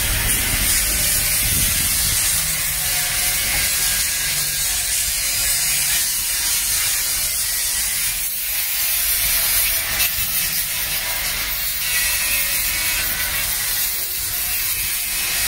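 Steady, continuous rapid rattle of a power tool working on steel plating during a boat refit.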